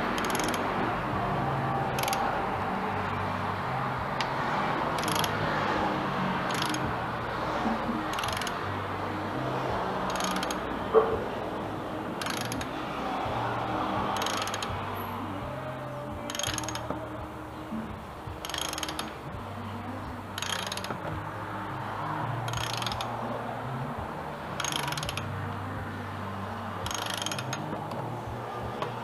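Ratchet wrench clicking in short strokes about every two seconds as a bolt is turned, over soft background music.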